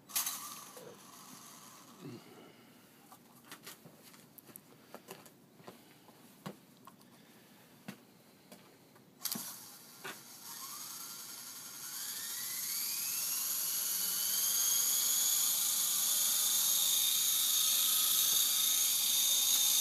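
Small electric contra-rotating RC helicopter's motors spinning up. About halfway through, after some scattered clicks and knocks, a whine rises steeply in pitch, then holds as a steady, high whine that grows louder as the helicopter lifts off the ground.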